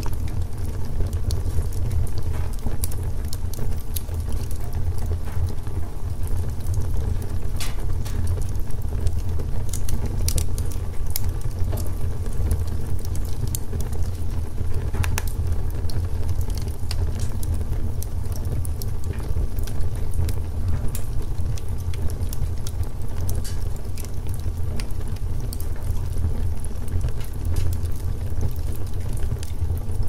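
Wood log fire burning: a steady low rumble of flames with scattered crackles and pops from the logs.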